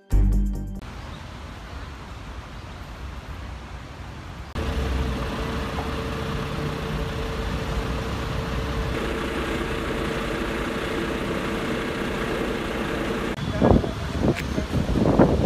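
Outdoor vehicle and traffic noise: a low engine rumble with a steady hum through the middle, then wind buffeting the microphone near the end.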